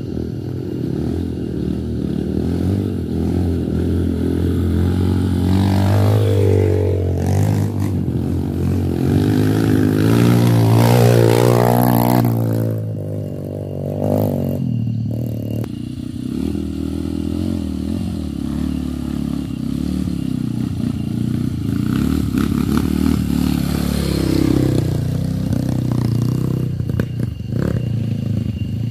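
Several trail motorcycles (dirt bikes) riding past on a muddy track, their engines revving up and down in pitch. The loudest and closest pass comes about ten to twelve seconds in, and another bike revs near the end.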